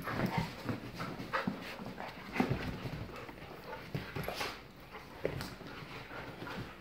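Two dogs play-wrestling: irregular scuffling on bedding, panting and short mouth noises, busiest for the first five seconds or so and then easing off.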